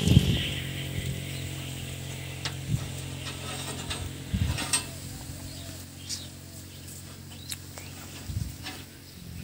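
Scattered sharp clicks and light rattling as solar-panel cables and their plug connectors are handled, over a steady low hum.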